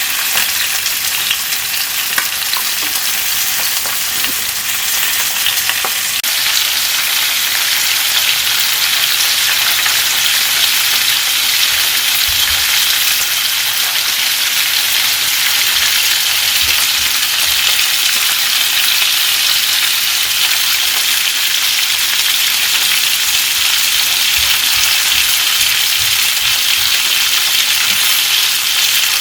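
Flounder pan-frying in oil: a steady crackling sizzle that grows a little brighter about six seconds in.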